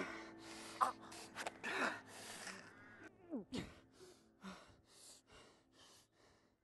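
A man gasping and choking for breath under a strangling grip: short ragged gasps and strained, falling moans that grow fainter and further apart until they stop.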